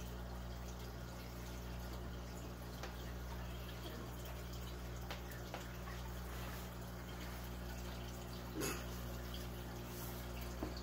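Steady low hum of room background with a few faint taps and one soft thump about eight and a half seconds in.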